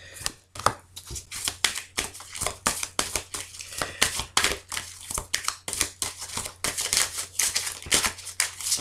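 A deck of oracle cards being shuffled by hand: a quick, even run of papery flicks and slaps, several a second.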